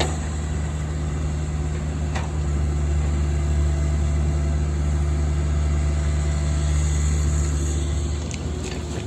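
CAT 305 mini excavator's diesel engine running steadily, with a few light clicks, softening slightly near the end.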